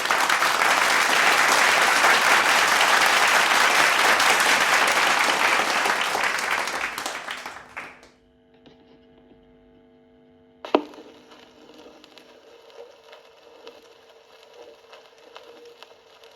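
A loud, steady rushing noise that fades away about eight seconds in. After a few seconds of faint hum comes one sharp click, then faint crackle and hiss, like a stylus dropping onto a vinyl record and riding the lead-in groove.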